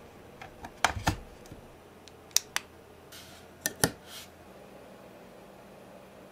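Handling sounds from setting up a digital soldering microscope: a cable plugged into the unit and a circuit board laid on its stand, giving half a dozen sharp clicks and taps with two brief scrapes as the board is slid into place near the middle.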